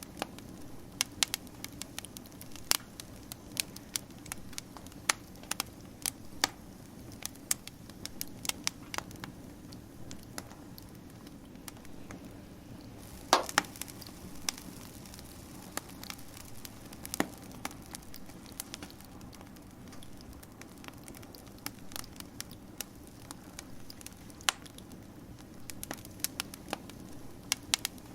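Wood fire crackling, with irregular sharp pops and snaps over a steady low rush of burning; one pop about halfway through stands out as the loudest.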